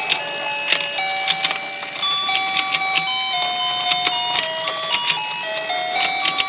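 Battery-powered toy fishing pond playing its electronic beeping tune, a single line of clear notes, over irregular plastic clicking from the turning pond and the fish opening and closing their mouths.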